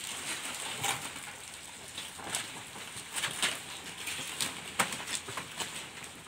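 Goats tearing and chewing banana leaves: irregular crisp rustling and snapping, a few sharp crackles at uneven intervals.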